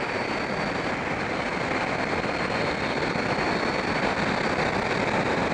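Steady wind rush and road noise from a Yamaha FZS600 Fazer motorcycle cruising at road speed, heard from the rider's helmet-mounted camera. The level holds even throughout.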